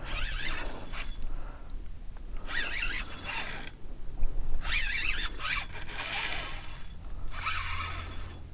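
Spinning reel working during the fight with a red drum on the line, in four bursts of about a second each with a wavering high pitch.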